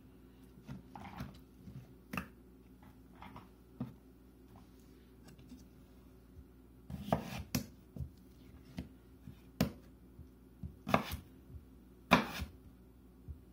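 Kitchen knife cutting russet potatoes on a wooden cutting board, with irregular knocks of the blade and potato pieces against the board. The knocks are faint and sparse at first and become louder and more frequent from about halfway.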